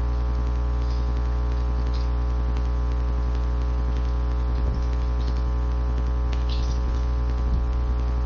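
Steady electrical mains hum with a ladder of even overtones, with a few faint ticks partway through.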